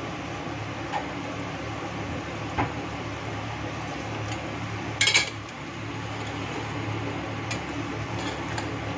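Metal spoon stirring and scraping in a stainless steel cooking pot, with a few light clinks and a louder clank about five seconds in, over a steady low hum.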